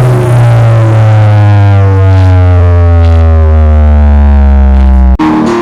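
Big outdoor sound system playing a loud, deep synth bass tone that slides slowly down in pitch for about five seconds. It cuts off abruptly near the end, where other music comes in.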